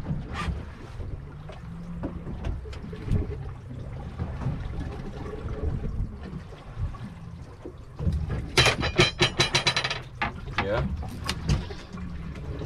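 Boat motor idling with a steady low hum under wind and water noise, and a burst of rapid sharp clicking about two-thirds of the way through.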